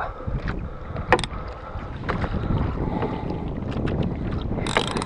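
Wind buffeting the microphone over the steady low rumble of a small outrigger fishing boat. A few short sharp clicks come through, and there is a brief rasp near the end.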